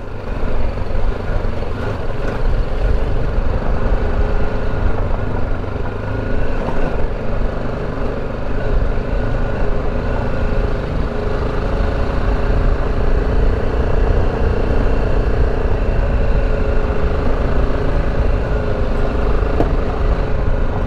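BMW G310GS single-cylinder motorcycle engine running steadily while riding on a rocky dirt mountain track, with heavy wind rumble on the microphone.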